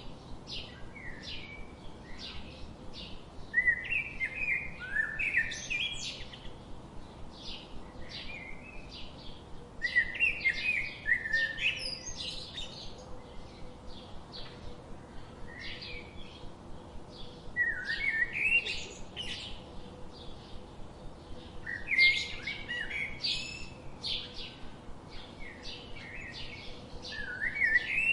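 Songbirds singing and chirping: a warbled song phrase about every five seconds, with short chirps repeating about twice a second in between.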